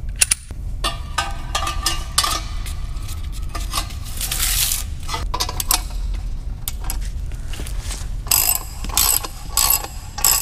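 Ratchet wrench clicking as it turns the bolt of a pipe expander inside a stainless exhaust pipe end, with sharp metallic clinks of tool on pipe, a quick run of them near the end. The expander is spreading an out-of-round, egg-shaped pipe end so it will slip over the mid-pipe.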